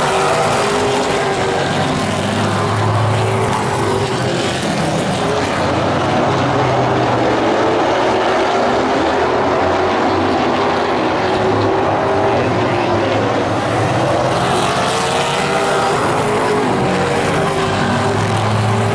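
Pro Late Model stock cars racing on a short oval, their V8 engines running hard, the pitch rising and falling as the cars come round and pass.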